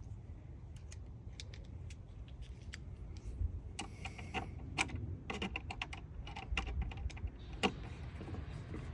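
Light metallic clicks and rattles from a hand tool with a T20 bit working the screws out of a tail-light housing, thickest in the middle of the stretch, over a steady low rumble.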